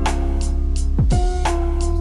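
Background music with a steady beat and a deep bass line; a bass note slides down in pitch about a second in.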